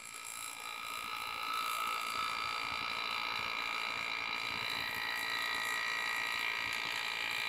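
Pneumatic engraving handpiece running, its air-driven piston hammering a graver as it cuts a scroll line in a metal plate. A steady, high-pitched running sound that grows louder over the first couple of seconds and then holds even.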